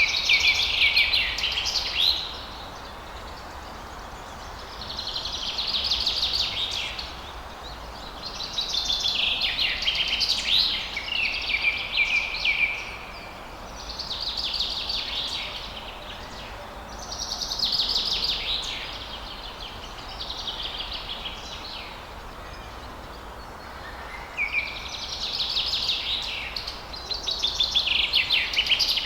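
A songbird singing rapid, warbled phrases a couple of seconds long, one every few seconds, over a faint steady rush of falling water.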